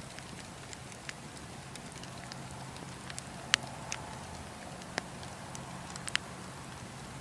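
Fire crackling: a steady soft hiss of flames broken by several sharp, irregular pops, the loudest about three and a half seconds in.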